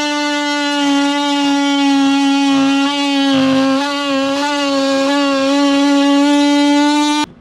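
DeWalt oscillating multi-tool running steadily and cutting into a Masonite soffit, a loud high buzz rich in overtones. Its pitch wavers slightly about halfway through, and it starts and stops abruptly.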